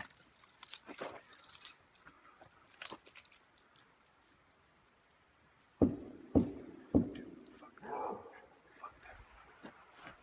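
A bunch of keys jangling, then three heavy thumps about six seconds in.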